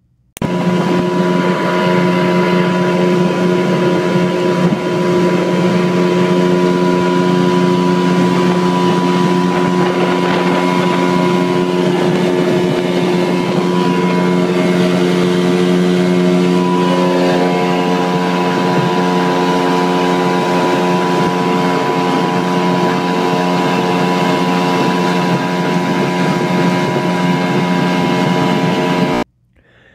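A 25-horsepower Evinrude outboard motor running steadily at cruising speed, pushing a small boat along, with the rush of water and wind beneath its note. The engine note shifts slightly about two-thirds of the way through.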